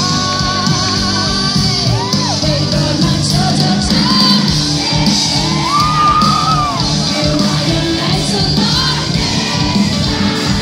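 Live concert music played through a PA: a band with singing, and shouts and whoops from the crowd over it.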